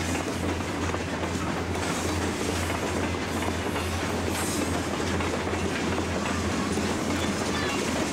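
Union Pacific freight train passing, its diesel locomotives running with a steady low drone under the rumble and clatter of the cars' wheels on the rails.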